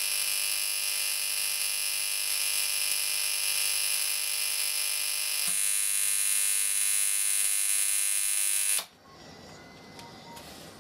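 High-voltage electric arc buzzing loudly and steadily at an electrode beside magnesium shavings. The buzz shifts in tone about halfway through, then cuts off suddenly as the arc goes out.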